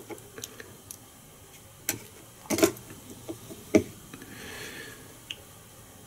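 A few light, scattered clicks and taps of small fly-tying tools and a glue bottle being handled while glue is dabbed on the thread wraps, with a soft rustle near the end.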